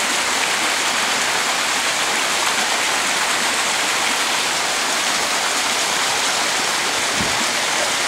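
Steady rush of running water in a large indoor koi pond, an even, unbroken splashing hiss.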